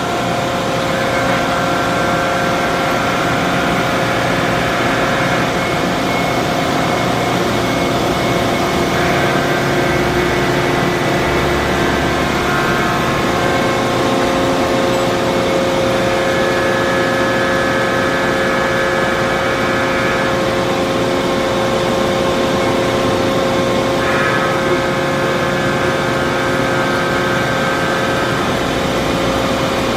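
Gallmeyer & Livingston Grand Rapids Model 360 hydraulic surface grinder running: a steady motor and hydraulic hum, with a higher whine that comes in for a few seconds and drops out again about every seven or eight seconds.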